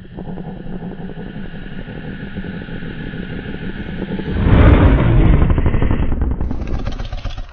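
Indominus rex creature sound effect from Jurassic World: a low, rattling growl that starts suddenly, swells loud about four seconds in, then tapers off.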